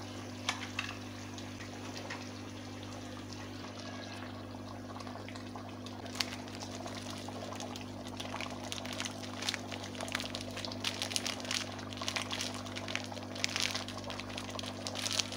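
Tomato-and-chicken masala gravy bubbling in a pot on the stove, a steady hiss with small popping crackles that grow more frequent from about eight seconds in, over a steady low hum.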